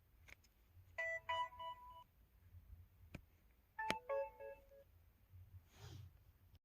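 LG-KU2800 flip phone's 'Melody' folder sound: a short chime of a few bright electronic notes about a second in, then sharp clicks of the flip and a second, lower chime about four seconds in, the phone signalling the folder opening and closing.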